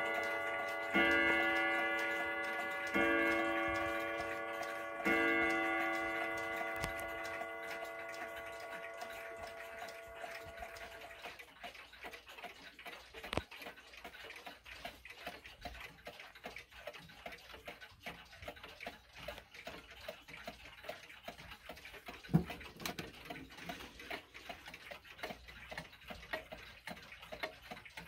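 A clock strikes on a bell or chime, three strokes about two seconds apart, and the tone rings away over several seconds. After that several pendulum clocks tick together, with an occasional knock.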